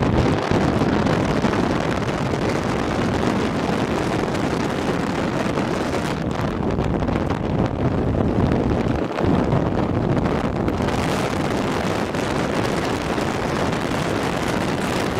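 Wind buffeting a microphone held out of the window of a moving pickup truck, mixed with the rush of tyres on the road; a steady, loud noise.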